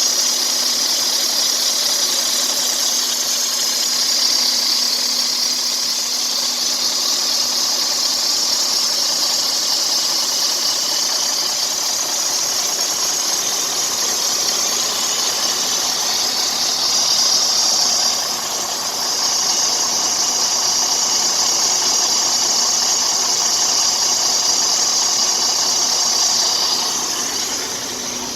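Freightliner Cascadia Detroit diesel engine idling with a steady, high hissing noise from the accessory belt drive. The high noise drops away briefly about two-thirds through and fades near the end. It is the sound of a worn belt tensioner that pulls the belt to one side, so the belt is going bad.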